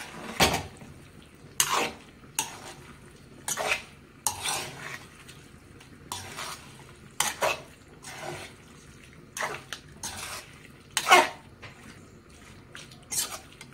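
Steel slotted spatula scraping and knocking against a stainless steel kadai as fried chicken is stirred through a thick masala, a dozen or so separate strokes about a second apart, the loudest about eleven seconds in.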